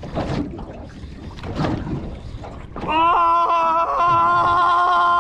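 Spinning reel's drag screaming as line is pulled off under a shark's run on the hooked fish: a loud, steady buzzing whine with regular ticks about four a second, starting about three seconds in after wind and water noise.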